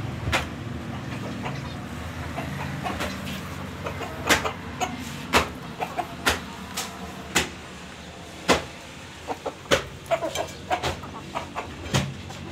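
Caged pigeons in a wooden, wire-mesh coop: low calls from the birds with scattered sharp knocks and clatters, the loudest events, about every second.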